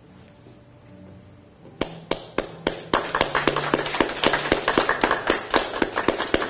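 Small audience clapping, starting with a few single claps about two seconds in and quickly filling into steady applause.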